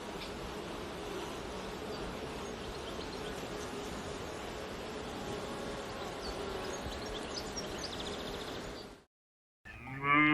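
A steady noisy hum with a faint low drone, cutting off abruptly about nine seconds in. After a brief silence a loud animal call with a clear pitch begins at the very end.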